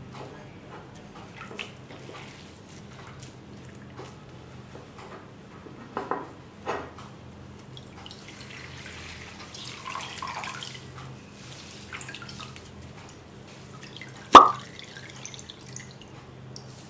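Water dripping and trickling into a bowl as soaked bread slices are squeezed out by hand. A single sharp knock late on is the loudest sound.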